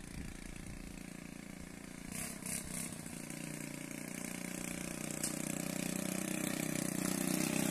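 Small gasoline engine of a homemade motorised cart running steadily as it drives closer, getting gradually louder. The engine is running on gasoline made at home from waste plastic bottles.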